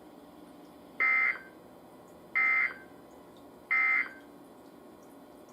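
Emergency Alert System end-of-message data bursts: three short, identical, high-pitched digital chirps about 1.4 seconds apart, signalling the end of the alert message.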